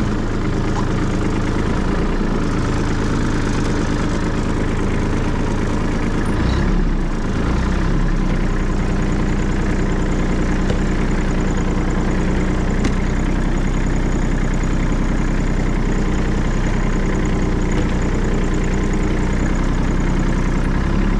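Kubota compact tractor's diesel engine idling steadily, with a brief change in its note about seven seconds in.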